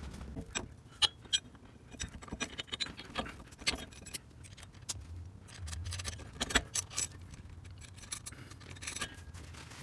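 Small metal hardware clicking and clinking at an irregular pace: nuts and washers being handled and threaded by hand onto the sway bar's U-bolts.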